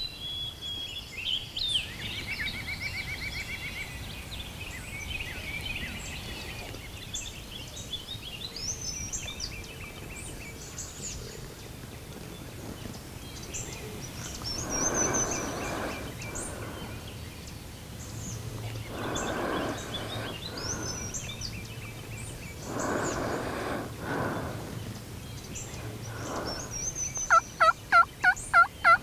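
Wild turkey gobbling four times, a few seconds apart, over songbirds singing, then a quick run of about eight loud turkey yelps near the end.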